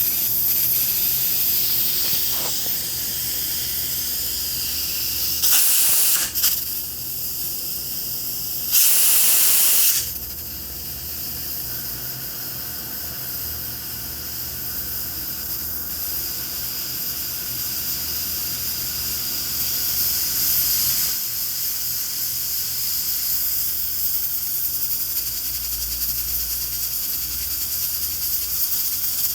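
Pressure cooker hissing steadily as steam escapes from its valve, a sign that it is up to pressure. Two louder bursts of venting, around six and nine seconds in.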